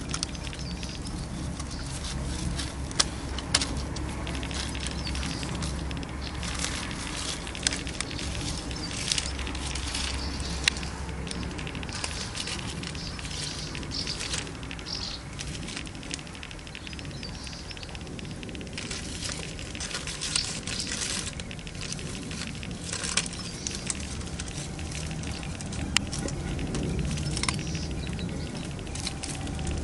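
Dry leaf litter and gravel rustling and crackling, with scattered sharp clicks, as a tortoise crawls through it. A low rumble sits on the microphone, stronger in the first half.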